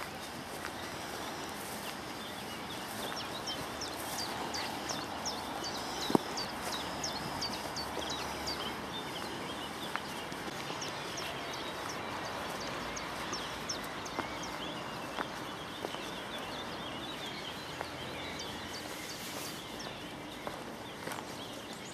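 Small birds chirping and singing over steady outdoor background noise, with light footsteps of someone walking along the path and one sharp knock about six seconds in.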